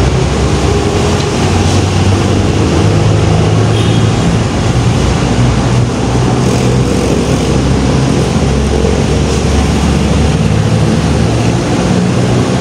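A vehicle engine running steadily, a low even hum with road traffic noise around it.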